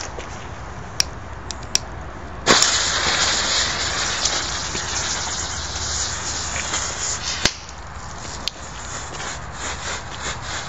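Ground firework burning: a few small pops, then about two and a half seconds in a loud spraying hiss of sparks starts and runs for several seconds. A sharp crack breaks it near the end, and smaller crackles follow.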